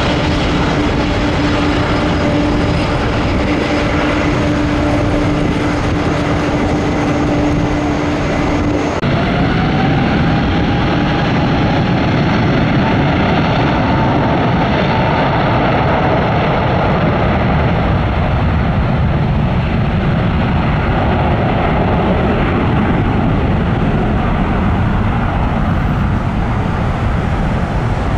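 Jet engine noise with a steady low hum for the first few seconds. It cuts abruptly to a Delta Airbus A350-900's Rolls-Royce Trent XWB turbofans going to take-off power: a whine rises briefly as they spool up, then a steady loud rush as the airliner rolls for take-off.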